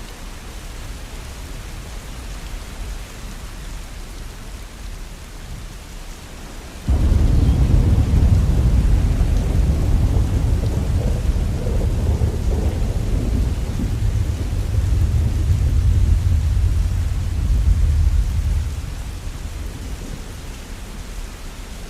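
Steady rain falling, with a long, loud rumble of thunder that breaks in suddenly about seven seconds in, rolls for about eleven seconds, then dies back to the rain.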